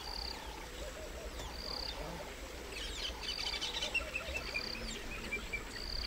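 Outdoor wildlife chorus at a waterside: birds calling, with one short high note repeating about every second and a half. A flurry of chirps comes about halfway through, followed by a quick run of evenly spaced notes, over low warbling calls.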